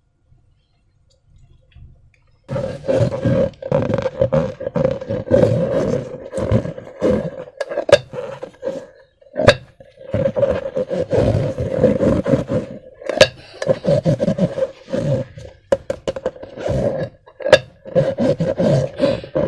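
Slime squelching and crackling as it is squeezed and worked by hand in a balloon, starting a couple of seconds in, with a rough, continuous texture and frequent sharp clicks.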